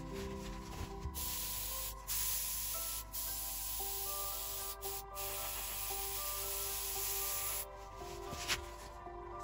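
Airbrush spraying paint: a steady airy hiss in short bursts that cuts off and starts again several times. Soft background music plays underneath.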